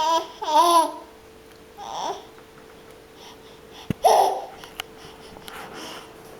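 A baby squealing and babbling in short high-pitched squeaks, several in a row, the loudest at the start and about four seconds in. A sharp click comes just before the second loud squeal, and a faint steady hum runs underneath.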